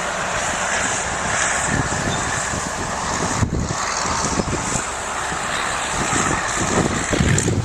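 Allis-Chalmers HD-6 crawler bulldozer's engine running steadily.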